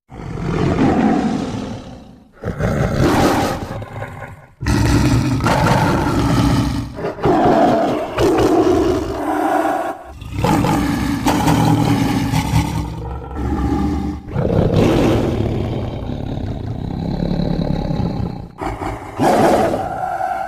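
Dinosaur roar sound effects proposed for the Kasai rex: a run of about seven deep, rough roars, each one to four seconds long, starting suddenly out of silence.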